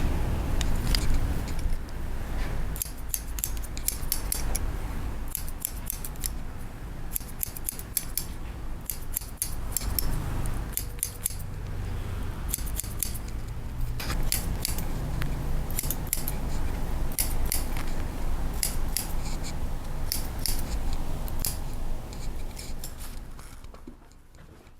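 Hairdressing scissors snipping through short hair in quick runs of crisp clicks, over a steady low rumble; the cutting stops about a second before the end.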